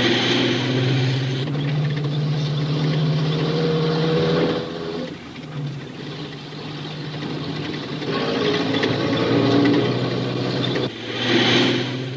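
Cartoon sound effect of a crane truck's engine running hard as it drives off, a steady low drone under a noisy rush of engine and tyres. It eases off about five seconds in, builds again, and surges once more near the end.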